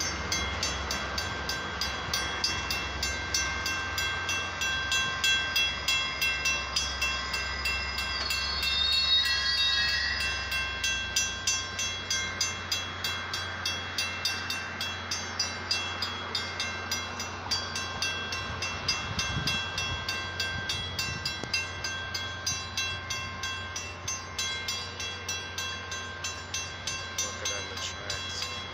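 Railroad crossing bell ringing in a fast, even rhythm while a Metra bilevel commuter train passes over the crossing, its low rumble fading out about eleven seconds in. A brief high squeal comes around nine seconds in.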